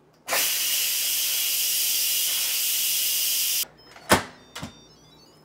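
Instant Pot pressure cooker venting steam through its release valve in a steady, loud hiss for about three seconds, which cuts off abruptly; two sharp clunks follow as the lid is handled.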